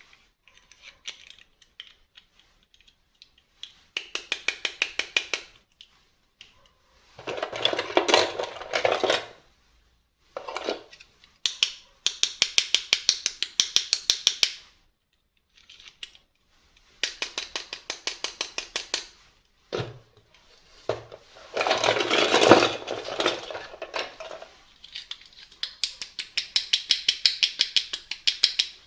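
Hands working plastic toy parts and packaging: repeated runs of rapid, even clicking, about ten clicks a second and a couple of seconds at a time, like a small ratchet. Twice, louder crinkly handling noise comes in.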